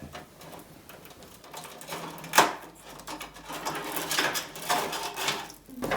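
Bundled power-supply cables being handled inside a PC case: plastic connectors rattling and clicking, with one sharper click about two and a half seconds in and a busier run of clicks near the end.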